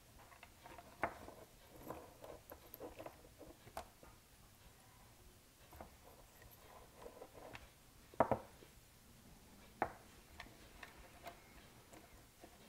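Faint, scattered clicks and taps of small metal parts being handled: the brass barrel, cable ends and housing of a throttle cable splitter box. A few sharper clicks stand out, the loudest about eight seconds in.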